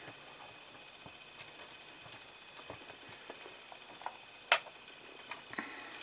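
Quiet room with faint scattered ticks and one sharp click about four and a half seconds in.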